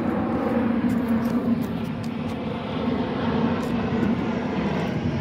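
Steady engine drone with a low hum.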